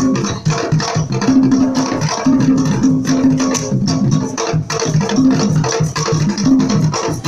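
Upbeat dance music with a steady beat and a repeating low riff.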